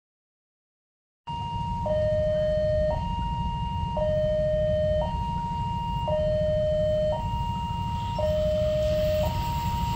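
Railway level-crossing alarm, an electronic two-tone signal alternating evenly between a high and a low note about once a second, over a steady low rumble. It starts after about a second of silence.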